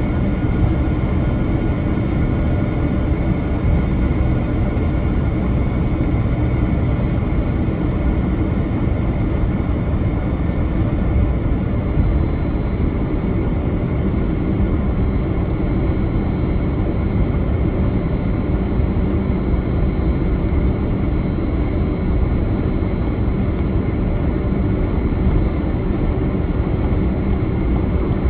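Cabin noise of a Boeing 767-300ER taxiing: its General Electric CF6 turbofans humming steadily at low taxi power over the low rumble of the wheels rolling on the taxiway, with a few faint steady whines on top.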